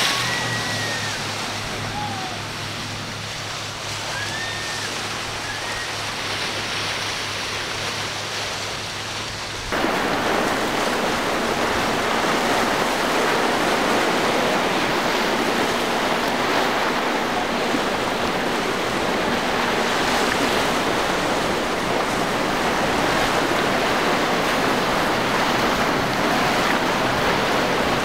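Waves and rushing water with wind-like noise. A low steady hum and a few short chirps sit under it for the first ten seconds. Then the sound cuts abruptly to a louder, even rush that holds.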